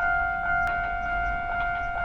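Japanese railroad crossing alarm ringing, an even repeating clang of about two strikes a second, warning that a train is approaching.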